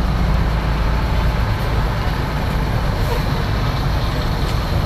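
Diesel engine of a coach bus running low and heavy as the bus pulls slowly past at close range.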